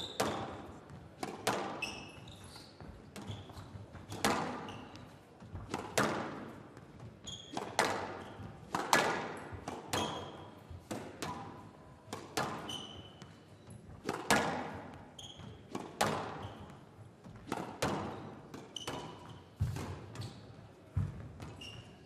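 Squash rally: the ball struck by rackets and rebounding off the walls. There are sharp, echoing hits every second or so, with short high squeaks from shoes on the court floor between shots.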